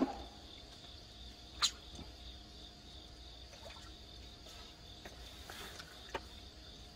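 Steady high-pitched insect chirring, with a sharp click about one and a half seconds in and a smaller one near the end, and faint water splashing from a hooked fish thrashing at the surface.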